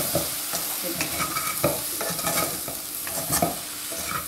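Wooden spatula stirring and tossing fried dhokla pieces in a hot pan of oil, scraping the pan bottom in repeated strokes, two or three a second, over a steady sizzle.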